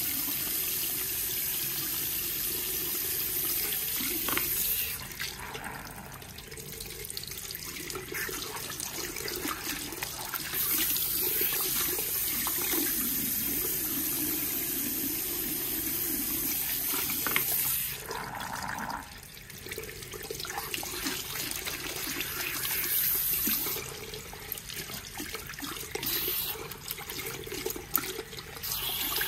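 Salon shampoo-basin hand shower spraying water through wet hair and into the basin. The hiss of the spray is steady and drops back twice for a few seconds as the stream is moved.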